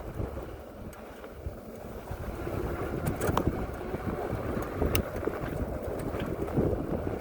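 Wind buffeting the microphone over the rumble of a fat-tyre electric bike riding a rough, rain-damaged road, with a few sharp knocks or rattles, the clearest about three and five seconds in.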